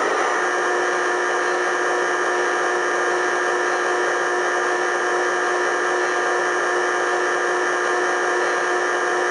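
Electric motor of a Lionel O gauge operating crane whining at a steady pitch as it lowers a bundle of logs onto a flatcar. It switches on suddenly at the start.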